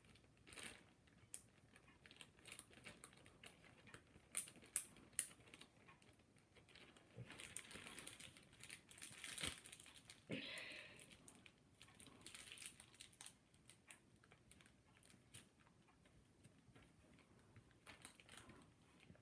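Faint crinkling and rustling of a thin plastic freezer bag being handled, twisted and knotted around a small filling of liquid. A few sharper crinkles come about four to five seconds in.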